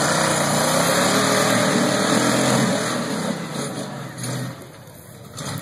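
Off-road rock buggy's engine revving hard as it drives out of the water and climbs a rock ledge. The engine eases off about three seconds in, surges briefly once more, then falls quieter near the end.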